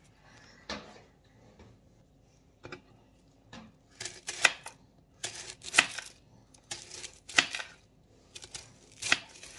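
Knife slicing a red onion into rings, the blade tapping the cutting board with each cut. A few scattered clicks at first, then quick groups of cuts from about four seconds in.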